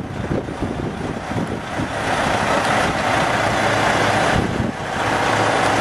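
Diesel semi tractor-trailer moving slowly, its engine running with low rumble and tyre noise, getting louder about two seconds in as it passes close.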